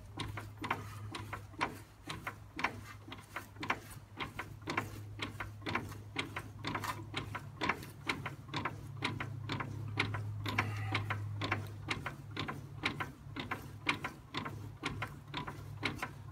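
Even, repeated clicking, about two to three clicks a second, of the sticking exhaust valve of a Kohler K301 engine being worked up and down by hand, the valve tapping as rust between its stem and the valve guide frees up. A steady low hum runs underneath.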